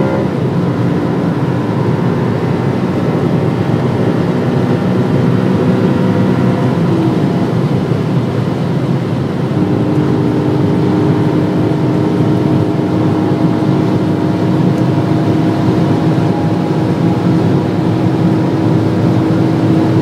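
BMW M3 E92's 4.0-litre V8 heard from inside the cabin at very high speed near its top speed: a steady loud engine note mixed with wind and road noise. About halfway through the engine note changes as the dual-clutch gearbox shifts up from sixth to seventh.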